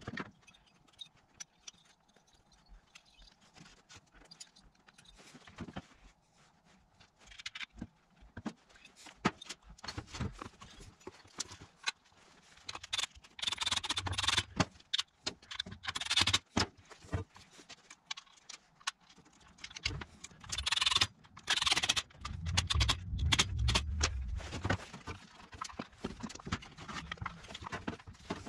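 Metal parts of a string trimmer engine clinking and knocking as they are handled and fitted back together. A cordless driver runs in two spells, about halfway through and again near two-thirds through, driving screws into the engine housing.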